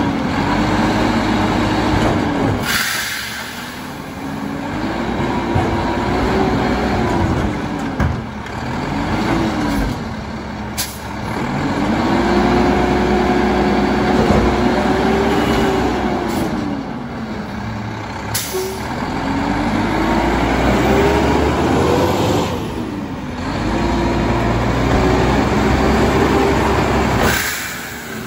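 Mack LEU garbage truck's engine revved hard over and over, climbing to a high held pitch for a few seconds and dropping back each time, as it drives the McNeilus side loader's packer. A few short, sharp air hisses cut in between the revs.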